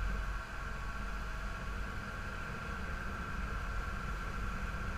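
Motor boat's engine running steadily under way: a low drone with a steady high whine over it, and a hiss of rushing water and wind.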